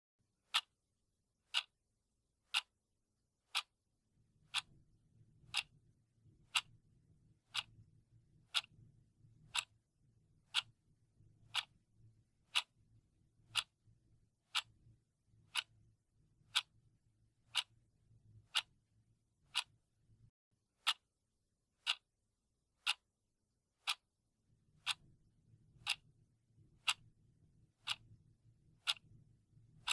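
Clock ticking, one sharp tick every second, evenly spaced. A faint low hum runs underneath for much of it, dropping out for a few seconds near the end.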